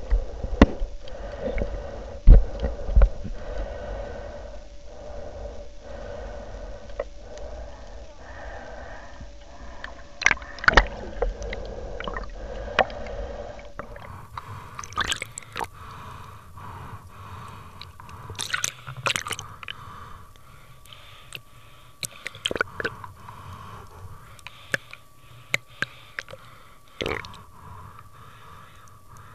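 Muffled underwater sound from a submerged camera while snorkeling: irregular clicks and knocks with gurgling water over a faint steady drone. The sharpest knocks come in the first few seconds.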